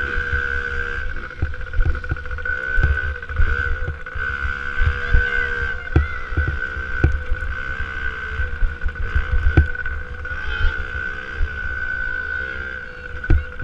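Small 65 cc two-stroke motocross bike engine revving up and down again and again as it is ridden, heard close up, with frequent low thumps and some wind on the microphone.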